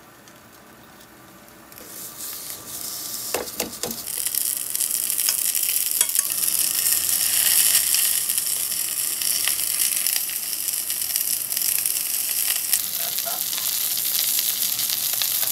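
Food sizzling loudly in a hot pan or on a griddle. The sizzle starts about two seconds in and then holds steady, with a few sharp clicks near four seconds.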